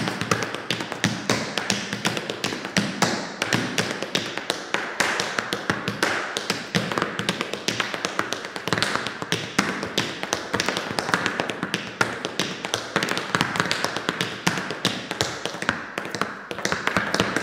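Tap shoes striking the floor in a fast tap dance: a rapid, uneven stream of sharp taps with shifting accents.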